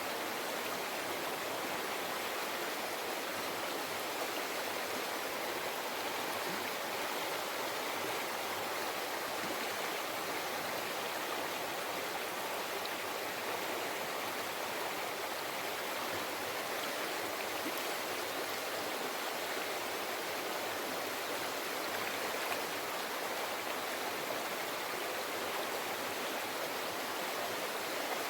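River flowing, a steady rush of water with no change in level.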